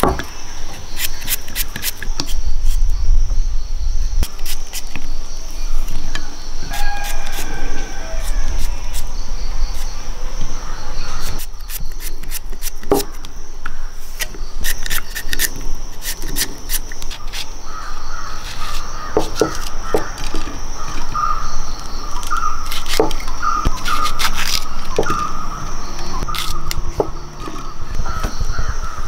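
Outdoor ambience: a steady high-pitched insect drone with crows cawing, mostly in the second half, and many sharp clicks and taps scattered throughout.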